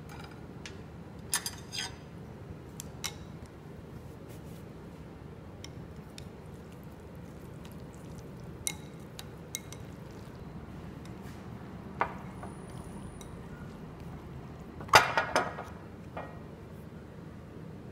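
Wooden chopsticks tapping and scraping against a ceramic bowl while mixing noodles in sauce: scattered light clicks, with a louder cluster of clatters about fifteen seconds in.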